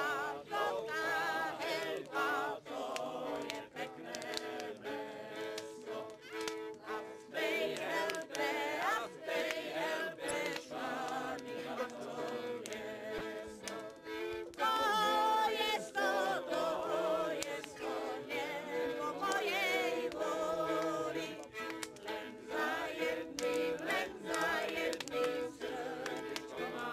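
Music with several voices singing, their pitch wavering, over held lower notes.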